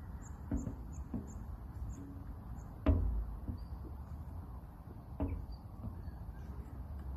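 Feet stepping onto and off a metal chequer-plate step box: a few dull thumps every second or two, the loudest about three seconds in, over a steady low rumble.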